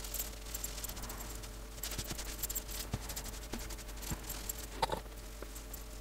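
Tissue dampened with isopropyl alcohol rubbing over the plastic housing of a Fein MultiMaster multitool: faint rustling and scrubbing with small handling clicks, and a short squeak about five seconds in.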